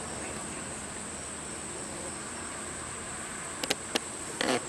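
Steady, high-pitched chorus of insects buzzing in the grass. A few short knocks and a brief scuffing burst near the end are the loudest sounds.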